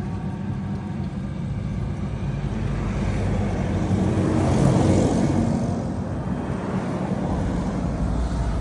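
A motor vehicle drives past, its engine and tyre noise swelling to loudest about five seconds in and then fading, over a steady low engine hum.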